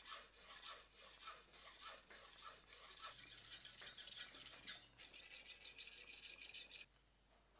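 Forged kitchen knife blade being worked back and forth on a whetstone: quick rasping strokes, several a second. The rasp turns finer and higher about five seconds in and stops about seven seconds in.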